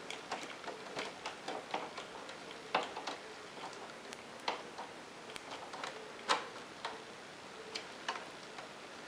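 A small screwdriver driving the fixing screw back into an Epson printer's plastic casing, making irregular light clicks and ticks, with the loudest click about six seconds in.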